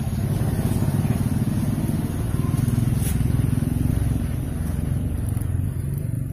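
An engine running with a steady low rumble, swelling slightly and then easing off toward the end.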